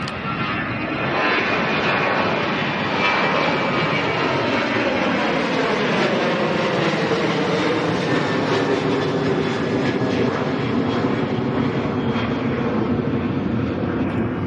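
Twin CFM56-7B turbofan jet engines of a Boeing 737-900ER at takeoff power as the airliner climbs out past and away. A loud, steady jet noise whose whining tones slide down in pitch during the first half, then hold low as the plane recedes.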